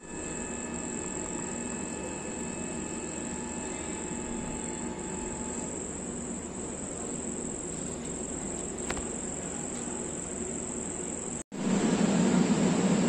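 Night insects trilling steadily in one continuous high-pitched drone. About eleven and a half seconds in, the sound cuts and a louder low rumble from a train standing at the platform takes over.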